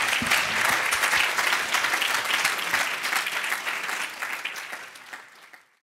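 Audience in a hall applauding, a dense patter of many hands clapping that dies away to silence near the end.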